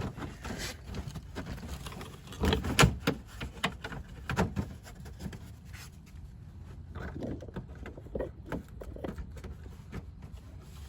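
Scattered knocks and clicks of things being handled, the loudest a cluster about two and a half to three seconds in, thinning out after the middle.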